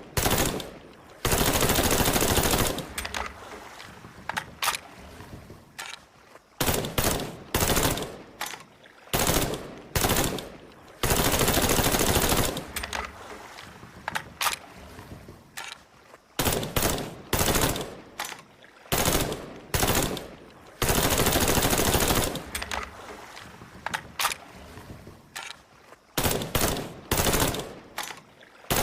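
Colt M16A1 5.56 mm rifle firing on full automatic: many short bursts, with three long sustained bursts of about two seconds, each cutting off sharply.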